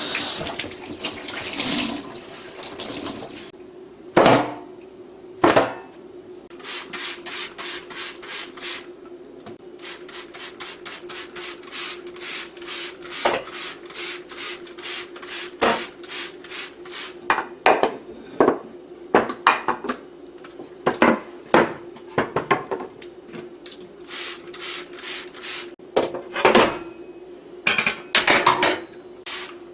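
Dishes being scrubbed and washed at a sink: runs of quick, even rubbing strokes, several a second, broken by pauses. A faint steady hum runs underneath.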